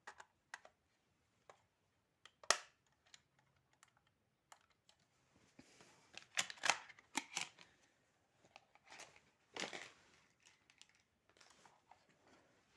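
Scattered light clicks and taps with short rustling scrapes, as of small hard objects being handled. The sharpest click comes about two and a half seconds in, with a denser run of clicks and scrapes around six to seven seconds and another scrape near ten seconds.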